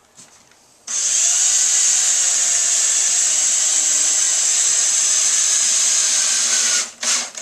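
Power drill driving a drywall screw through the patch into the wood backing behind it, countersinking the head. The motor runs steadily for about six seconds, then stops and gives a short burst near the end.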